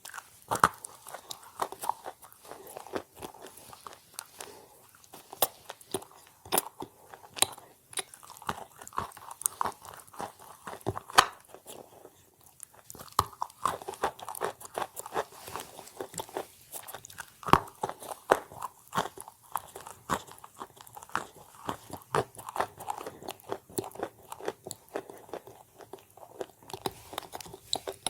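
A person chewing and biting chalk: a steady run of sharp, dry crunches as the pieces are bitten and ground, with a brief lull about twelve seconds in.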